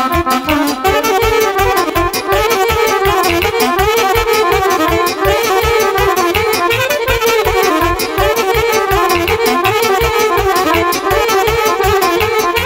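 Live band playing an instrumental passage of Romanian folk dance music: a fast, ornamented lead melody over a steady beat.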